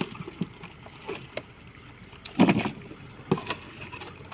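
Freshly caught catfish thrashing and splashing in water, in irregular bursts; the loudest comes about two and a half seconds in, with another just after three seconds.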